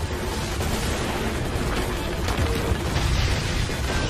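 Action-scene sound effects: a loud, dense, continuous rumble of crashing and booming with heavy bass, mixed with background music.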